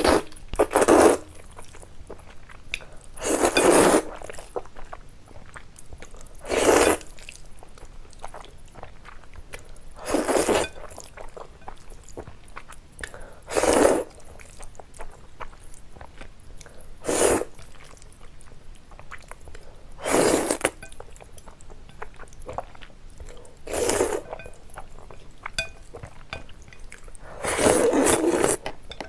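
Mouth sounds of a person eating noodles: short, breathy, noisy bursts about every three and a half seconds, nine in all.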